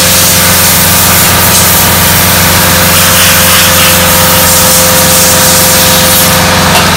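A loud, steady machine running: a low hum with a constant hiss over it, unchanged throughout.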